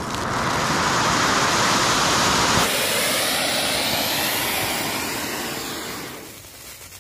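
Flower pot (anar) fountain firework burning, a loud, steady rushing hiss of sparks. About two and a half seconds in the hiss changes abruptly in tone, and it dies away near the end.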